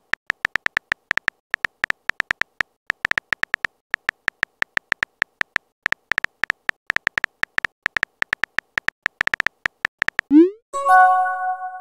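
Rapid, irregular key-tap clicks of a texting app's on-screen keyboard as a message is typed. About ten seconds in, a quick rising swoop and a short chime, the app's message-sent sound.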